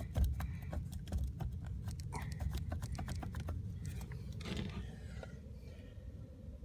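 Rapid, irregular clicking and tapping of a homemade cleaning tip being worked inside a whole-house humidifier's plastic tube to clear it. About four and a half seconds in there is a brief scraping rustle, after which it goes quieter over a low rumble.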